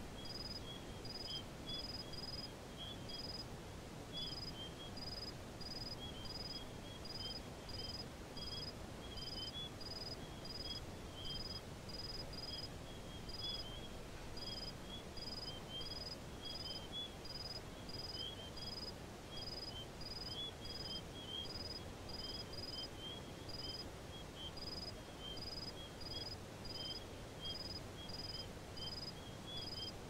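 An insect chirping in short, evenly spaced high pulses, about one and a half a second, with faint twittering chirps, over a steady low outdoor rush.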